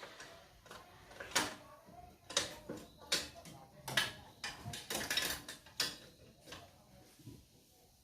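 Hand tools and engine parts clicking and knocking as they are handled during engine assembly: irregular sharp clicks, busiest from about three to six seconds in.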